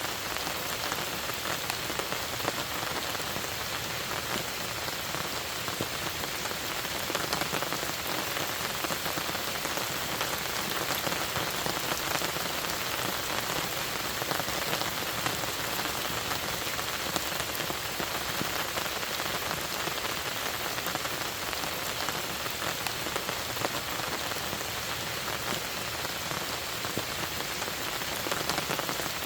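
Steady rain falling on a lake and its surroundings: an even patter of many fine drops, with no let-up.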